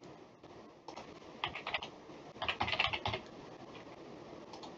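Typing on a computer keyboard: a short run of keystrokes, then a longer, faster run, with a couple of light clicks near the end.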